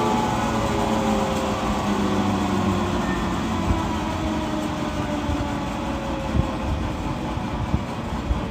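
Jet engine running with a broad roar and several whining tones that slowly fall in pitch, the overall level easing a little.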